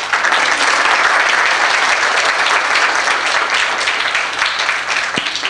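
Congregation applauding, a dense steady sound of many hands clapping that eases slightly near the end.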